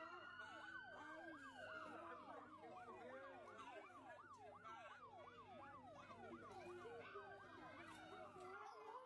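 Faint emergency-vehicle sirens: one in a fast yelp, rising and falling about three times a second, over slower wailing sirens that rise and fall.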